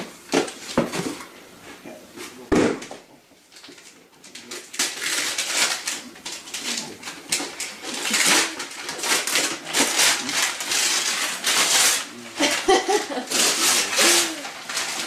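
Wrapping paper crinkling and tearing in quick repeated rips as a gift box is unwrapped, going on from about four seconds in. A few knocks from handling a cardboard box come in the first few seconds.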